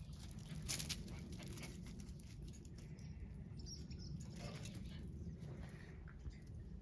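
Quiet farmyard ambience over a steady low rumble: scuffling clicks and light patter of puppies' paws and claws on concrete, bunched about a second in and scattered later, with a few faint high bird chirps near the middle.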